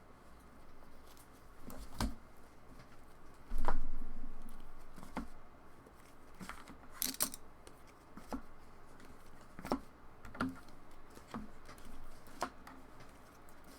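Trading cards and card holders being handled and set down on a table: irregular light taps and clicks, with one heavier thump about three and a half seconds in.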